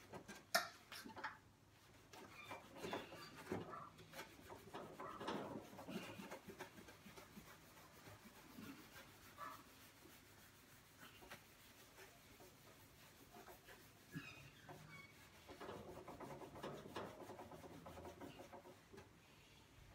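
Sponge rubbing at a burn mark on the stainless steel lid panel of a barbecue, in quiet, uneven scrubbing strokes, with one sharp click about half a second in.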